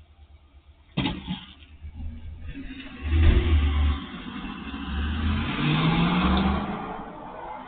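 Pickup truck engine accelerating as the truck drives off and passes along the street, rising in pitch before fading near the end, heard through a security camera's microphone. A sharp knock about a second in.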